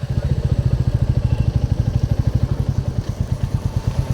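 Royal Enfield motorcycle engine running steadily with an even, low thump, about nine beats a second.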